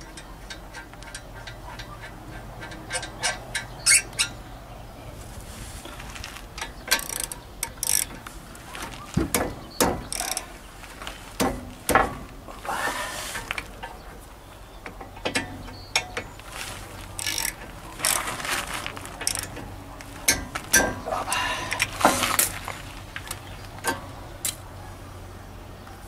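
Hand tools and metal brake parts being handled during a brake disc job: scattered, irregular metallic clicks, clanks and rattles, with a few short scrapes.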